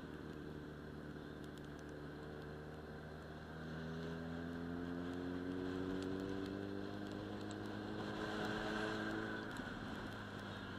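Sport motorcycle engine accelerating, its pitch rising steadily for several seconds before it drops away near the end, over a steady low hum and wind noise.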